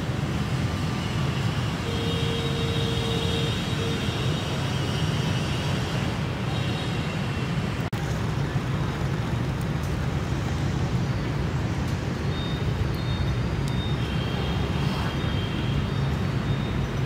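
Steady low outdoor background rumble, with faint thin high tones coming and going.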